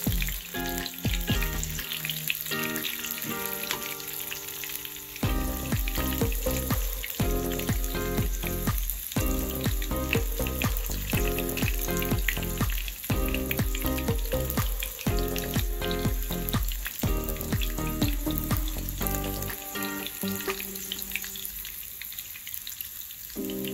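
A burger patty sizzling and crackling steadily in shallow hot oil in a small non-stick frying pan, with background music with a steady bass underneath.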